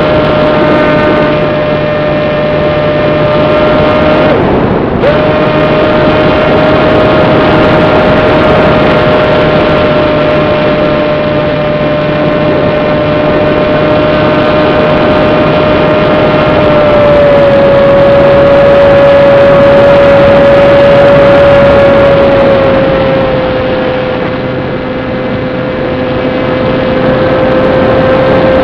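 Small electric RC plane motor and propeller whining steadily in flight, with airflow rushing over the onboard microphone. The whine cuts out briefly about four seconds in, then drops slightly in pitch twice later on, as the throttle is eased back.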